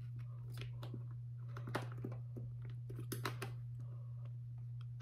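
Faint, irregular clicks and small crackles of a plastic mouth guard being handled and fitted against a football helmet's face mask, over a steady low hum.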